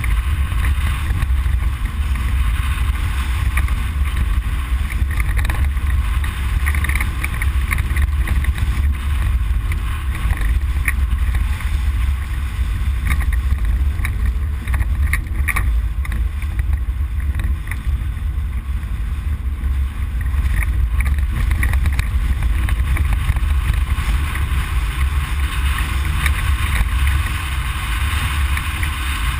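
Ford Explorer prerunner driving off-road, heard from inside the cab: a steady heavy low rumble of engine, tyres and wind, with scattered rattles and small knocks.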